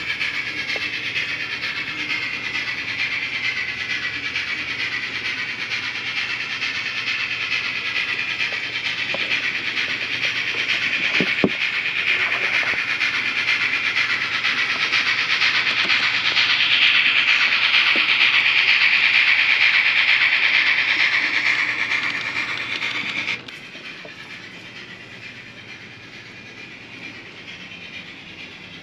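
HO scale model train running along the layout track close by: a steady whirring hiss of small wheels and motor on the rails. It builds to its loudest about two-thirds of the way in, then cuts off abruptly, leaving a much quieter background.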